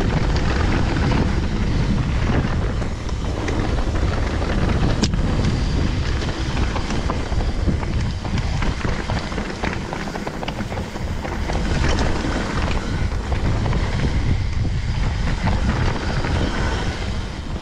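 Wind buffeting the microphone over the rumble of mountain-bike tyres rolling down a rough trail at speed, with scattered clicks and rattles from the bike and one sharp knock about five seconds in.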